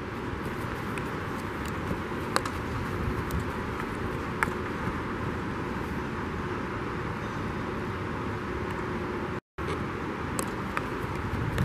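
Steady rushing background noise of a large indoor turf dome, broken by sharp clacks of a field hockey stick tapping and striking the ball during dribbling drills, two of them clearly louder than the rest. The sound cuts out for an instant about nine and a half seconds in.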